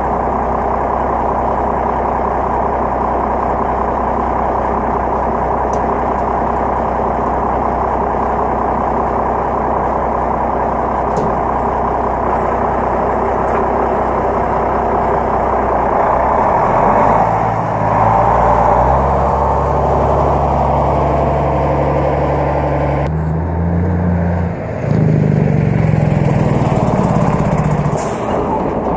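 Heavy truck's diesel engine idling steadily, then revving in steps as the truck gets under way, growing louder for the last few seconds as it comes close.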